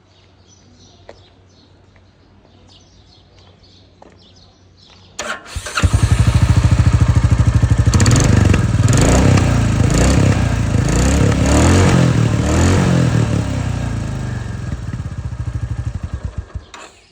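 Royal Enfield Classic 350 Reborn's single-cylinder engine starting about five seconds in and running with a steady pulsing exhaust beat. It is revved several times, then shut off just before the end.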